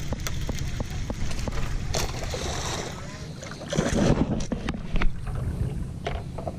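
Water splashing as a hooked bass thrashes at the surface beside a boat, loudest about four seconds in, over a steady low rumble and scattered sharp clicks.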